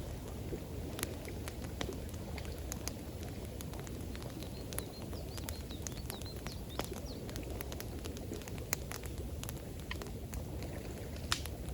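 Campfire crackling with irregular sharp pops, over a steady rush of running water.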